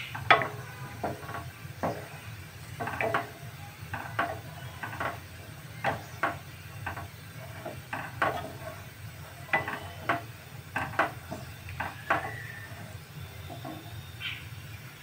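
A wooden spatula knocking and scraping against a stainless steel kadai while stirring a thin curry gravy, in irregular taps about every half second, over a low steady hum.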